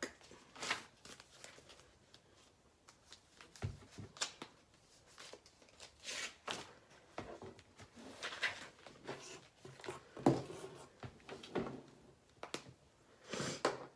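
Faint handling noises of small objects: scattered light clicks and short rustles, a few slightly louder ones in the second half.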